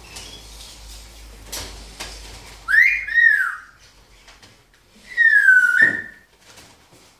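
Timneh grey parrot giving two loud whistles: the first rises and falls in two quick arcs, the second slides down and then holds level.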